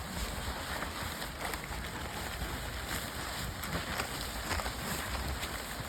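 Wind buffeting the microphone as a steady low rumble outdoors, with faint scattered rustles and scuffs.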